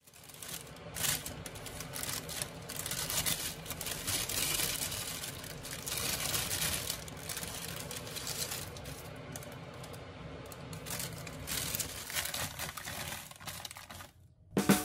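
Paper bakery bag crinkling and rustling as it is handled and opened, with a few light knocks among the rustling.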